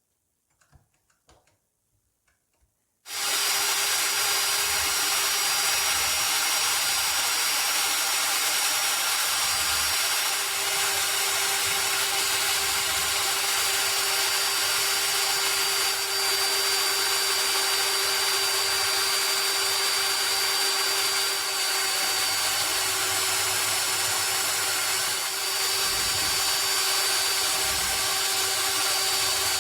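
A few faint clicks, then about three seconds in a power tool switches on and runs steadily at a constant speed, a loud even hiss with a steady whine over it.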